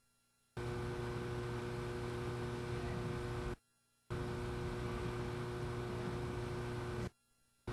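Steady hiss with a constant electrical hum, which cuts out to dead silence three times: right at the start, about three and a half seconds in, and again near the end, each time for about half a second.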